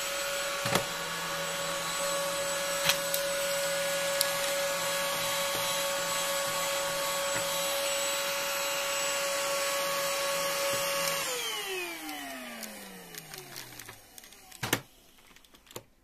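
Battery-powered (cordless) vacuum cleaner running with a steady high whine while vacuuming a seed off a carpet. About eleven seconds in it is switched off and the motor winds down, its whine falling in pitch over about three seconds. A few sharp clicks come along the way, one just after the motor stops.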